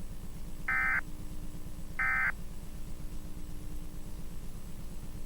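Two short bursts of the screeching digital data tones of an Emergency Alert System broadcast, about a second apart, the last of the three end-of-message bursts that close an alert. A steady low hum runs underneath.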